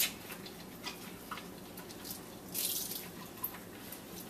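Dishes being hand-washed in a sink of soapy water: a washcloth scrubbing a bowl, with small splashes, drips and clinks, and a short louder swish a little past halfway.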